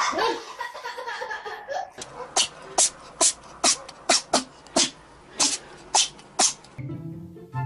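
Cat chattering at a window: a run of about a dozen short, sharp clicking chirps, two to three a second, which stop abruptly.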